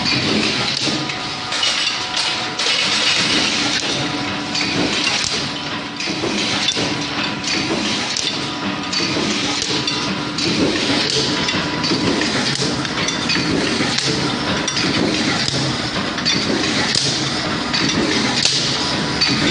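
Hot-forging hexagon-nut production line running: a continuous clatter of metal parts clinking and knocking over machinery noise, with a thin steady tone.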